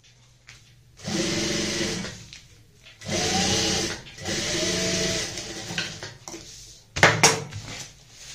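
Table-mounted electric sewing machine stitching a folded hem through quilted fabric with a plastic-sack lining, running in three bursts of about a second each. A few sharp clacks and rustles near the end as the work is pulled from the machine.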